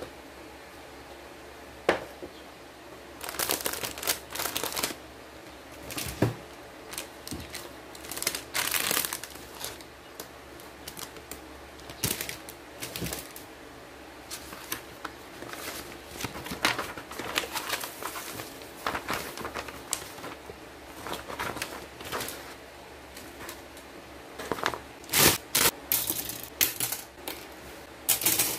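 A model-kit cardboard box, its paper instruction sheet and plastic parts runners being handled and unpacked: irregular rustling and crinkling with scattered sharp clicks, the first clear click about two seconds in.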